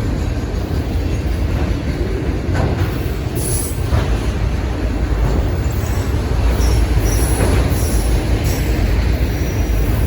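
Union Pacific manifest freight train rolling past with a loud, steady rumble of wheels on the rails, and several brief high-pitched wheel squeals.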